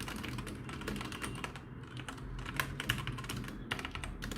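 Typing on a 60% mechanical keyboard with Outemu Red linear switches: a fast, uneven run of fairly quiet key clicks.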